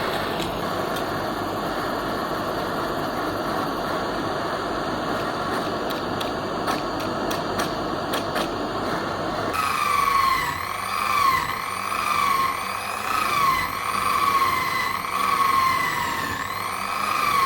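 A power tool working the metal. For about nine seconds there is a steady rough abrasive noise with a few sharp clicks. After an abrupt change, a motor whine dips in pitch and recovers about once a second.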